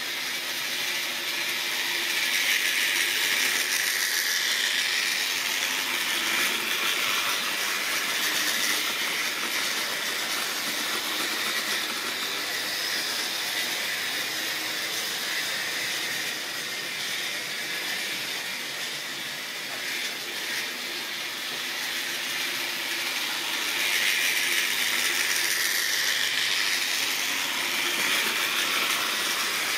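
Model railway trains running on the track: a steady whirring, rolling noise of small electric motors and metal wheels on rail. It swells as a train passes close by, a few seconds in and again near the end.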